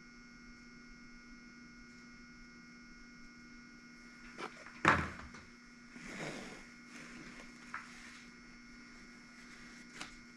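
Steady electrical hum, with handling sounds from about four seconds in: a few light clicks, one sharp knock near five seconds in, and a brief scrape, as tools and parts are picked up and set down on the bench while switching to fine valve-lapping compound.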